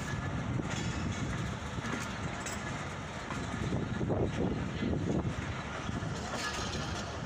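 Passenger train running along the rails: a steady rumble of wheels and carriage, swelling briefly about four seconds in.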